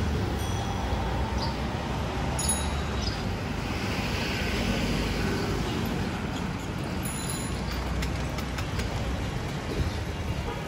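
City street traffic noise: a steady mix of passing vehicles' engines and tyres, with a couple of brief high-pitched tones.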